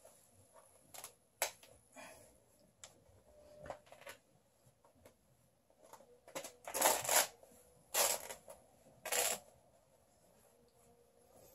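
Worn cloth trousers rustling and scraping as they are pulled hard by hand in an effort to rip them. Scattered small clicks, then three louder rustles close together in the second half.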